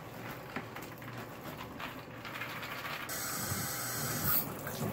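Biological filter media poured into the plastic basket of a canister filter, a faint rattle and clatter. About three seconds in, a tap turns on and water runs into the sink with a steady hiss to rinse the media.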